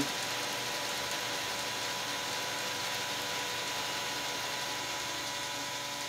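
Small electric model-railroad motors running steadily, with a faint even whine and hum. These are the motors on the wireless throttle's receivers, including a G-scale Shay locomotive throttled down to a crawl.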